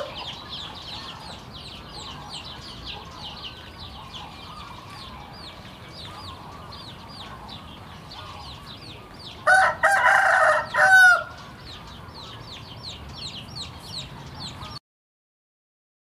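A rooster crows once, a loud call of under two seconds, about halfway through. Behind it runs a steady series of short high chirps, about three or four a second, and the sound cuts off about a second before the end.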